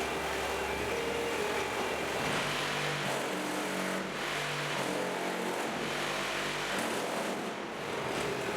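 Concrete block machine running: steady mechanical noise with a low motor hum whose pitch shifts in steps several times.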